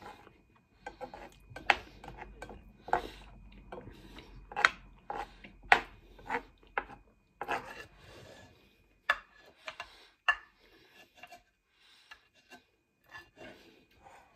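Black plastic spoon scraping and knocking against a frying pan, a run of short rasping scrapes as pasta is scooped up from the pan; they thin out after about ten seconds.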